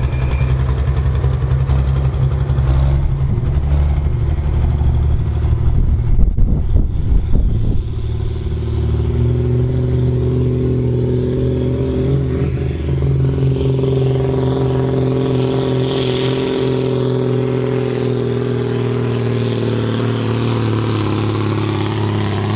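John Deere 4240S tractor's turbocharged six-cylinder diesel running at high revs under full pulling load, dragging a weight sled. The note is rough for the first several seconds, then settles into a steady, held pitch.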